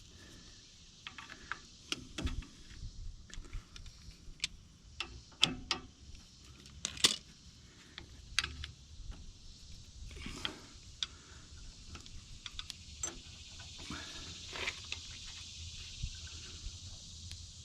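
Scattered light metallic clicks and clinks of a shear pin, bolt and washers being handled and fitted on a backhoe, with a few louder knocks near the middle.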